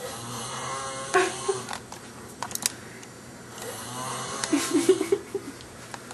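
A man snoring loudly: two long, rattling snores a few seconds apart, with a few sharp clicks between them.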